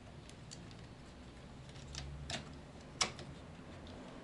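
Hard plastic parts of a Transformers Combiner Wars Bruticus figure clicking and knocking as the right leg is fitted onto the torso: a few short, sharp clicks, the loudest about three seconds in.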